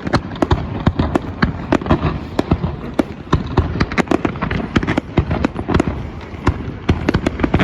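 Fireworks going off in rapid succession: several sharp bangs and cracks a second over a continuous rumble of bursts.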